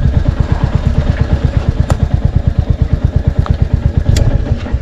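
Royal Enfield Hunter 350's single-cylinder engine running at low revs, an even, rapid thumping of about ten beats a second, with a few light clicks. The thumping eases off near the end.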